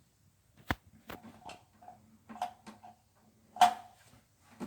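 A series of sharp clicks and knocks, five or so, the loudest about three and a half seconds in, from the parts of a toilet tank's fill valve being handled and worked loose.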